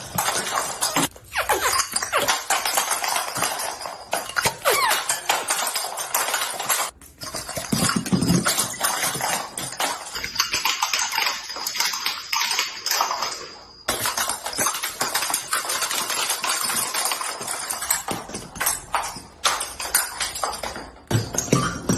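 Dense runs of sharp cracking and popping clicks from joints being cracked in chiropractic back adjustments. Several short clips are cut together, with abrupt breaks between them.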